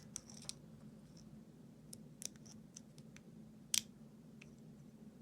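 Faint, irregular metallic clicks of a hook pick and tension wrench working the pin stack of an American 1100 padlock, with one sharper click a little past the middle. The clicks are pins being lifted and set as the core moves into a deeper false set.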